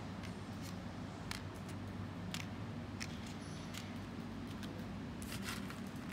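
Small, sharp, irregular clicks of dried beans knocking against one another and against a plastic cup as they are picked out one by one and pressed onto glued paper, with a few clicks close together about five seconds in. A steady low hum runs underneath.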